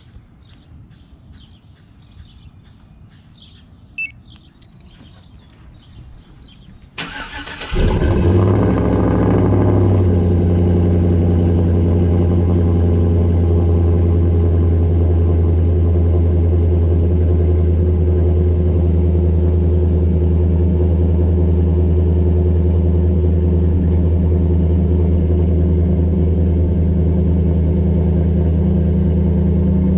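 Remote cold start of a 2013 Chevrolet Silverado V8 with a stage 2 BTR camshaft and cat delete, through a Flowmaster muffler. About seven seconds in the starter cranks briefly, the engine catches, flares up and settles within a couple of seconds into a loud, steady cold idle, its cam chop largely muffled by the Flowmaster.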